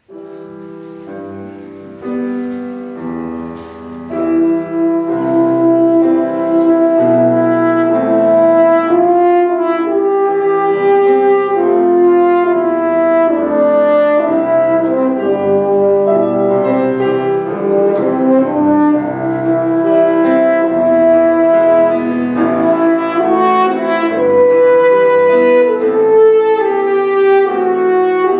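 French horn playing a solo melody with piano accompaniment in a chamber ensemble of winds and piano. The music starts softly and swells about four seconds in.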